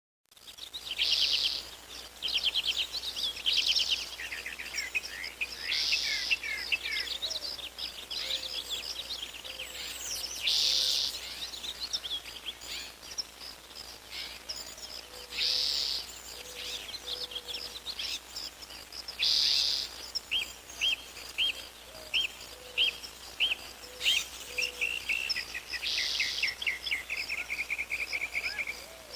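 Several songbirds singing: a loud buzzy phrase about a second long repeats every few seconds, mixed with fast trills and runs of short chirps.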